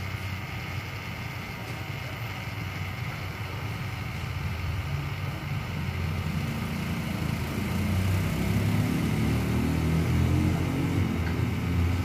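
Small battery-powered nail dryer fan running steadily. A low engine rumble grows louder through the second half and becomes the loudest sound.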